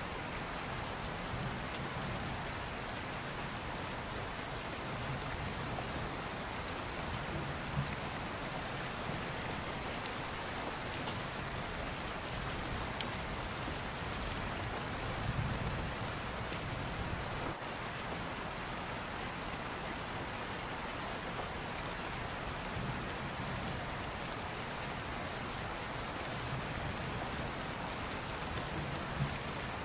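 Steady rain falling, an even hiss with scattered faint drop ticks and a few soft low rumbles.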